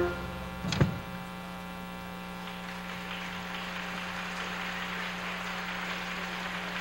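A last short chord hit from the band about a second in, then a steady electrical mains hum with many overtones and a faint noisy hiss.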